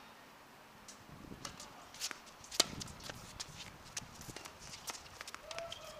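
Footsteps of a tennis player walking across a hard court, irregular light clicks, with one sharp knock about two and a half seconds in.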